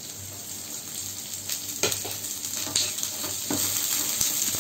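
Chopped onions sizzling in a little hot olive oil in a non-stick frying pan, with a wooden spatula scraping and tapping against the pan a few times as they are stirred.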